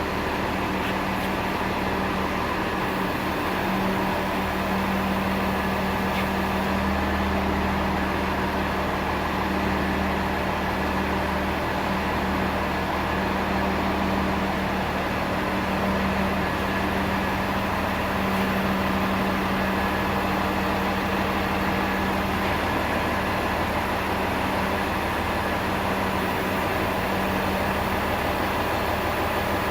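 An engine running steadily at a constant speed, with a steady hum that does not change.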